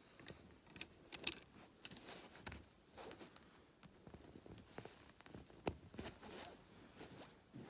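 Plastic Lego bricks clicking and tapping as they are handled and pressed together: a string of small, irregular clicks, the sharpest a little over a second in.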